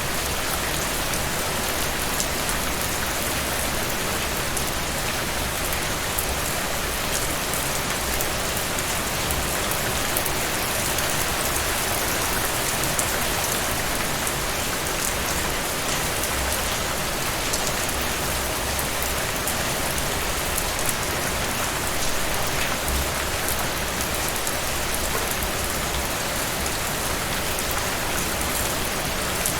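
Steady rain falling on a surface, a dense even hiss of many drops with fine scattered patters.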